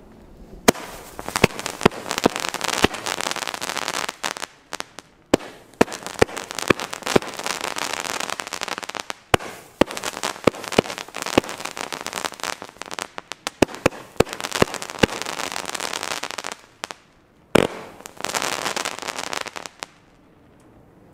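Consumer firework battery (a 'Pusteblume' cake) firing its shots: rising comet tails hissing and crackling, with many sharp bangs. The volleys are broken by a few short pauses, there is one louder bang near the end, and the battery stops about a second before the end.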